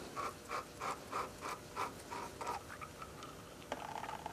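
Faint rhythmic ticking, about three a second for a couple of seconds, as a threaded valve fitting is turned out of a hydraulic floor jack's body.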